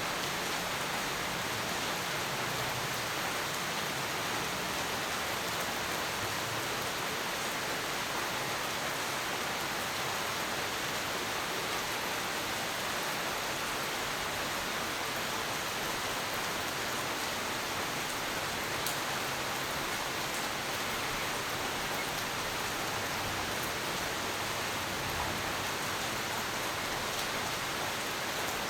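Steady rain falling, an even hiss that holds constant with no thunder.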